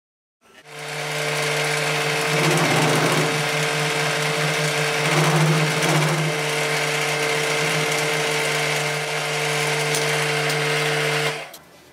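Milling machine spindle motor starting up and running steadily with an end mill cutting into a metal part, the cut getting louder and noisier twice, about two to three seconds in and again around five to six seconds in. The machine stops just before the end.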